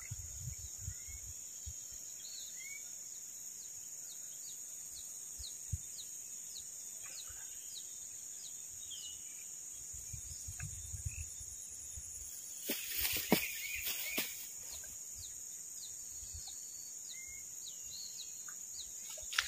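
Steady high-pitched insect drone over open ground, with a bird giving short falling chirps about twice a second. A little past the middle comes a brief burst of rustling and clicks.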